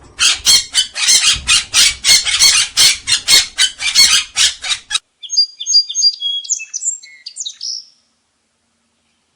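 Birds calling: about five seconds of harsh squawks repeated two or three times a second, then a short run of high chirping notes.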